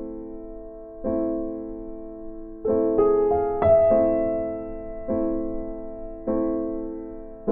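Background piano music: slow, gentle chords, each struck and left to ring out, with a quicker run of three chords about three seconds in.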